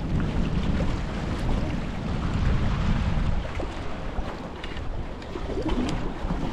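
Strong wind buffeting the microphone: a steady, rumbling noise heaviest in the low end, with no other clear sound above it.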